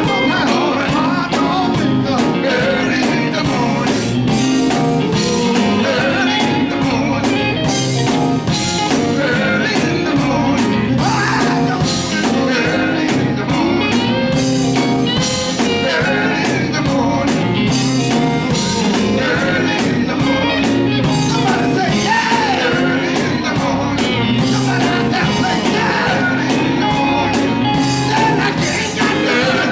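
Gospel quartet music: voices singing over a full band with a steady drum beat.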